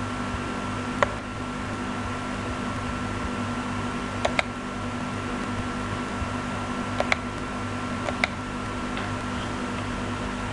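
Computer mouse clicks over a steady electrical hum: about half a dozen short, sharp clicks, two of them in quick pairs near the middle.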